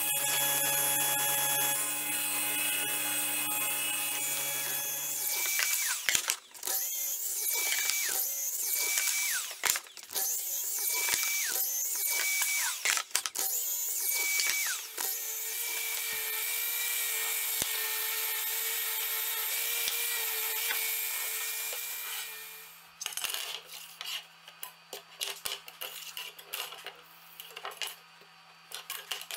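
Power saws cutting wood: a table saw runs steadily through a board for the first five seconds or so. Then a sliding miter saw makes a series of short cuts, each with a whine that falls away, followed by one longer steady run. For the last several seconds, metal rails clink and tap as they are handled on a wooden workbench.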